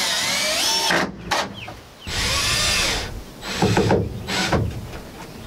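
Cordless drill driving screws into wood framing, in two runs: one during the first second and another about two seconds in, the motor's pitch shifting as the screw bites. A few sharp knocks follow.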